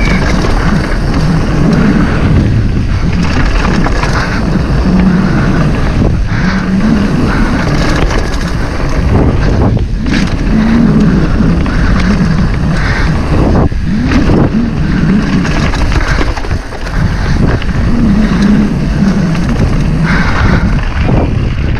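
Downhill mountain bike ridden fast down a rough trail: wind rushing over the microphone and tyres running over dirt, with a few sharp knocks from the bike.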